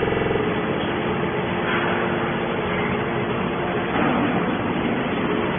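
Hydraulic can baler's electric motor and pump running: a steady mechanical noise with a hum that is strong for the first half-second, then drops to a faint steady tone.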